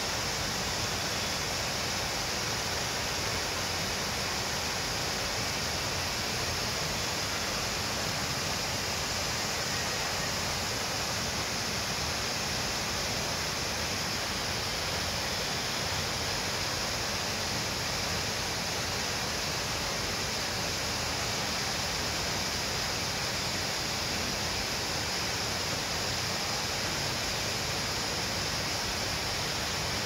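Steady, even hiss that never changes and has no distinct events in it.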